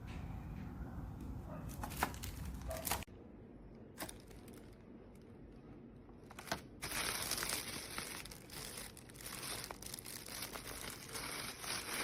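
A low hum with a few clicks cuts off suddenly about three seconds in. After a quieter stretch with a couple of single clicks, a dense crinkling, crackling noise starts about seven seconds in and keeps going.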